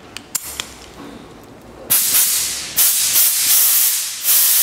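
A few light metallic clicks as an air blow gun is snapped into a pneumatic quick coupler. About two seconds in, compressed air starts hissing loudly out of the blow gun in three long blasts, the last still going at the end.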